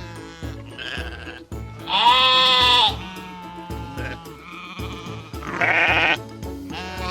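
Sheep bleating over light background music: a faint bleat about a second in, then two long, loud, quavering bleats at about two and about six seconds in.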